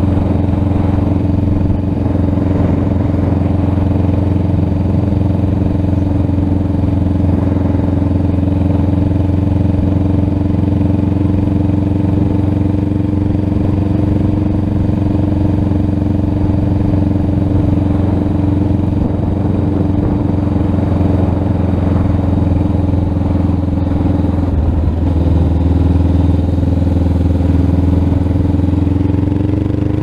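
Honda Rebel 500's parallel-twin engine through a TBR slip-on exhaust, running at a steady cruise on the road. Its note dips slightly about three-quarters of the way through, then rises near the end as the bike speeds up.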